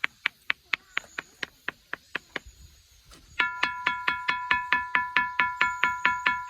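Stones struck rapidly, about four strikes a second. For the first two seconds or so the strikes are dry knocks, like a moktak. After a short pause a ringing stone is struck at the same pace, each strike holding a steady bell-like tone that carries into the next.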